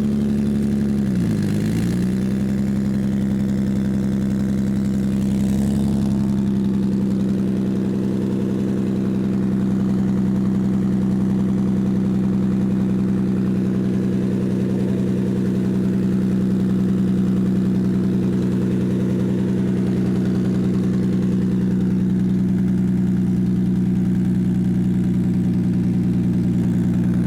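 Toyota Soarer (Z20) engine running steadily at idle, its pitch dipping briefly about a second in before settling back.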